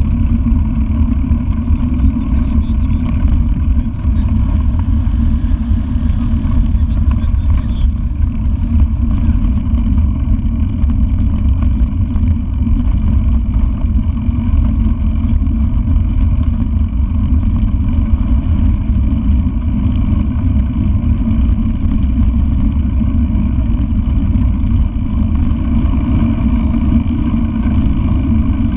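Steady low wind rumble on the microphone of an action camera carried on a moving bicycle, mixed with the rolling noise of the ride on a paved road.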